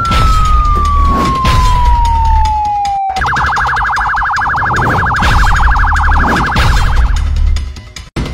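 Police-style siren: a slow falling wail, then about three seconds in a rapid warbling yelp for about four seconds, over a bass-heavy music beat.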